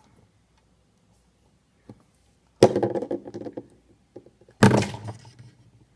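Two loud thunks about two seconds apart, the first nearly three seconds in, each trailing off over about a second: handling knocks.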